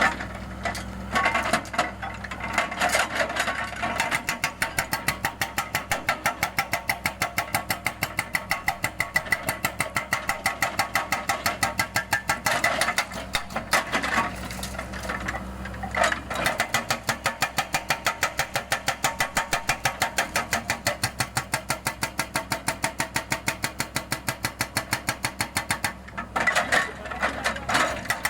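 Mini excavator's hydraulic breaker hammering a concrete slab: a rapid, even train of blows, several a second, over the excavator's engine running, with a few brief breaks as the breaker is repositioned.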